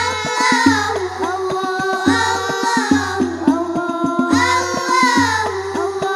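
Children singing Al Banjari sholawat over rebana frame drums: a gliding sung melody over rapid drum strikes and recurring deep bass beats.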